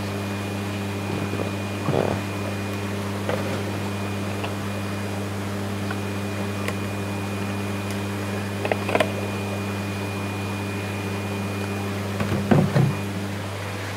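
Steady low electrical hum with its overtones, with a faint high thin tone above it and a few light clicks and knocks, the loudest near the end.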